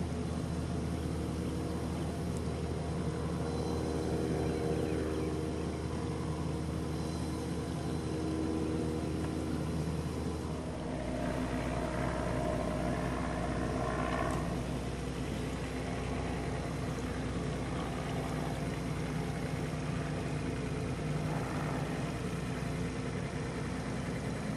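Small outboard motor on a Sun Cat catboat running steadily while the boat motors about under power with its sail furled. The hum shifts a little in tone about halfway through.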